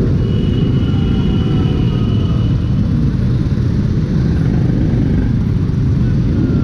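Engines of a large pack of motorcycles rumbling at low speed in slow, crowded traffic, a loud, steady low rumble.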